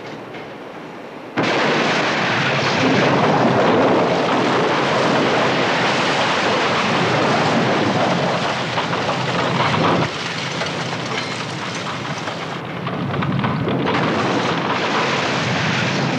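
Bus crashing as it tumbles down a rocky cliff face: a sudden loud crash about a second in, then continuous crashing and scraping of metal and glass on rock, mixed with falling rocks and debris.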